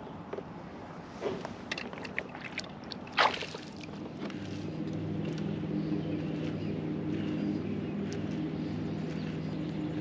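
Water sloshing against a kayak hull with a few light knocks. From about four seconds in, a steady low mechanical whir pulses regularly.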